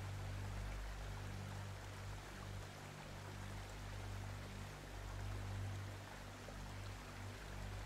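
Soft ambient background music: low sustained notes under a steady, flowing-water-like hiss.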